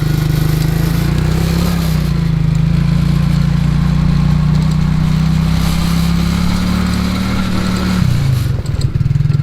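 ATV engine running under throttle with a steady note that rises slightly about a second in, then drops back toward idle near the end.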